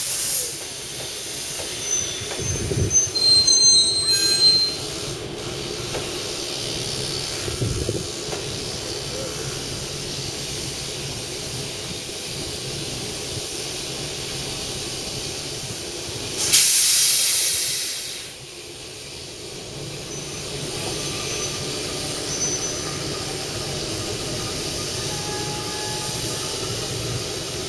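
Class 08 diesel shunter running at slow speed while moving a rake of steam locomotives, with high wheel squeals on the curved track in the first few seconds. About 16 seconds in comes a loud burst of steam hiss that dies away over a second or two.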